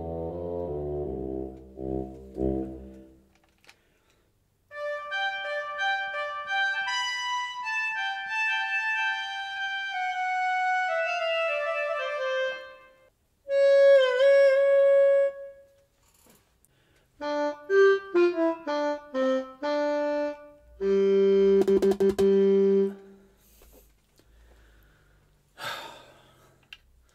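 AKAI EWI5000 electronic wind instrument played through its sampled sounds. A low note fades away, then come a long falling run of notes, a held note bent down and back, a burst of short detached notes and a held low note. A single click follows near the end.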